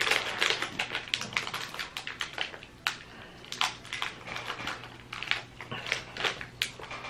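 Plastic snack wrapper crinkling and crackling as it is worked open around a stroopwafel, in quick irregular bursts.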